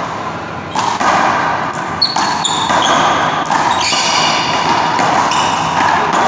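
One-wall handball rally: a string of sharp smacks as the rubber ball is slapped by hand and hits the wall and floor, with short high sneaker squeaks on the court floor as the players lunge.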